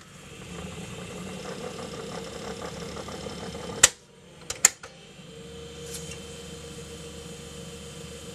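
Motor and reels of a Philips-Norelco EL3586 portable reel-to-reel tape recorder running in fast forward, the take-up spindle driven directly by the idler. About four seconds in, several sharp clunks of the piano keys and transport, then the machine runs again with a steadier hum.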